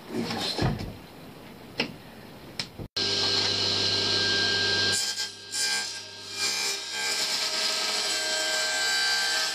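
A few light knocks, then, after an abrupt break about three seconds in, an electric power tool runs steadily on wood with a rasping edge to its sound.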